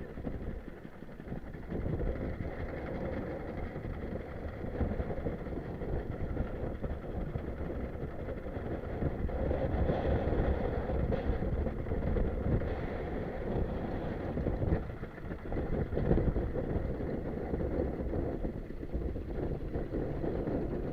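Strong wind buffeting the microphone: a dense low rumble that swells and dips, with gusts about halfway through and again a few seconds later.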